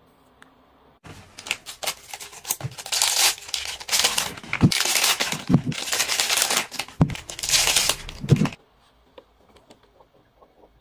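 Packaging crinkling and tearing as it is opened by hand, in loud rustling spells from about a second in until shortly before the end, with a few dull knocks among them.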